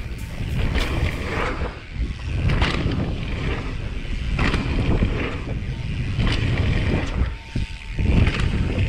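Mountain bike ridden fast down a dirt jump line: wind rushes over the camera microphone while the tyres rumble over packed dirt. Short clatters from the bike come through now and then over bumps and landings.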